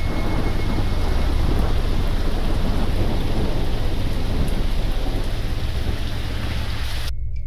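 Thunderstorm: heavy rain hissing over a continuous low rumble of thunder, which cuts off suddenly near the end.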